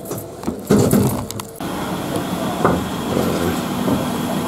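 A few knocks and clatter in the first second and a half, then a Hino city bus idling at the stop with a steady hum.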